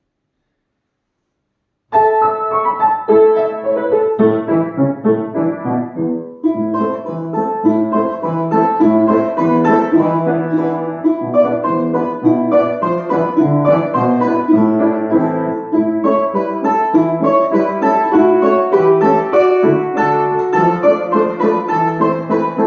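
About two seconds of dead silence, then solo instrumental music starts abruptly: a student recital piece with many quick notes in a keyboard sound.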